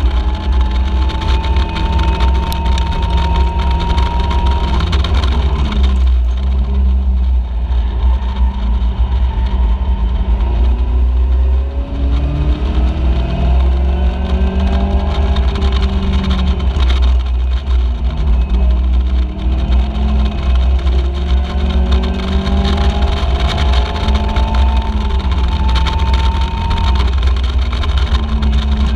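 Caterham Seven race car's engine heard from the cockpit at racing speed, rising in pitch as it accelerates and dropping back each time the driver lifts or shifts for a corner, several times over. A deep, steady rumble runs underneath.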